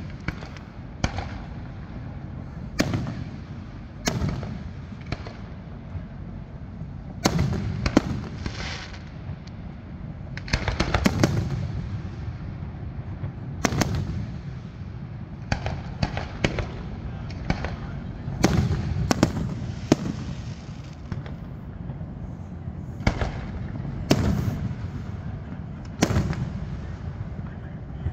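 Aerial fireworks display going off: sharp bangs every second or two, some in quick clusters of crackling pops, each trailing into a low rumbling echo.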